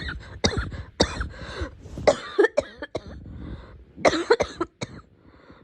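A girl coughing repeatedly in several bouts of quick coughs, one cluster just after another, with short pauses between bouts.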